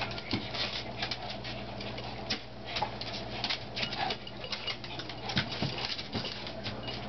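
Two small dogs play-wrestling on a hardwood floor: quick, irregular clicking and scrabbling of claws on the wood as they jump and shuffle around each other.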